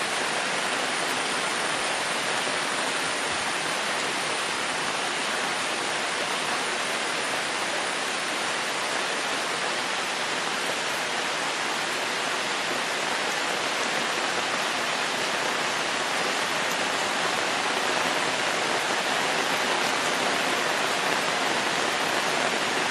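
Steady heavy rain falling, an even, unbroken hiss, with a faint high thin tone that fades out about halfway through.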